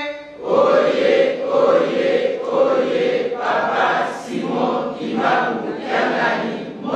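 A group of voices singing a chant together in unison, in short phrases of about a second each.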